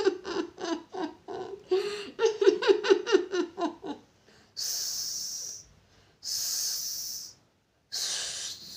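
A woman's voice for about four seconds, then three drawn-out hisses of about a second each, a person imitating a snake's hiss.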